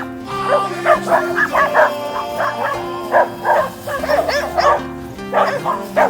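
Several dogs barking and yipping in a rapid, overlapping stream as they play rough, over background music with long held notes.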